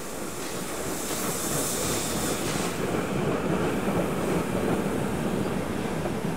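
Steam-hauled goods train of short wooden wagons and a brake van rolling past, a steady rumble and clatter of wheels on the rails that is loudest about four seconds in. A hiss rides over it in the first few seconds.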